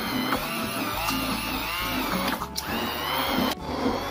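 Electric stick blender running in a steel pot, churning through a thick mixture of cooked rice and curd, its motor whine wavering in pitch as the load changes. It breaks off briefly about two and a half seconds in and again about a second later.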